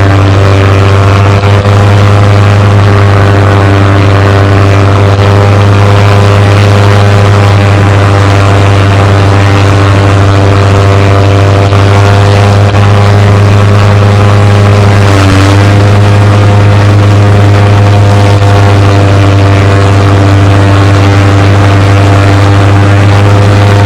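Propeller aircraft engine running loud and steady, with a strong low hum and a brief dip in pitch about fifteen seconds in.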